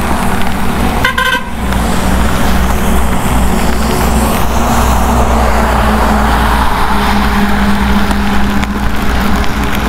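Motorcycle running steadily at road speed under loud wind and road noise, with a short vehicle horn toot about a second in.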